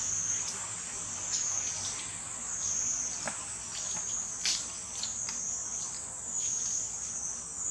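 Steady high-pitched insect chorus in the forest, swelling and easing in a slow pulse about once a second, with a few short ticks and rustles scattered through it.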